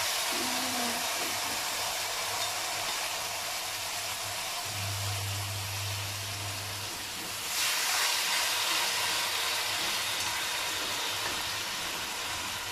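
Marinated pork shoulder steaks sizzling in hot oil in a wok, a steady frying hiss. The sizzle flares louder about seven and a half seconds in as a second steak is laid into the pan.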